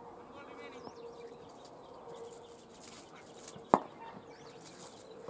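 Open-air background with a steady hum and faint bird chirps, broken about three and a half seconds in by a single sharp crack.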